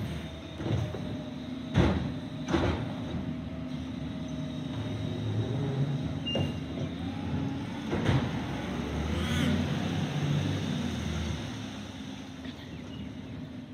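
Diesel engine of a garbage truck with a Richards compactor body running as the truck pulls away. Sharp clanks come about two seconds in and again about eight seconds in, and the engine's pitch rises briefly after the second clank. The sound fades near the end as the truck moves off.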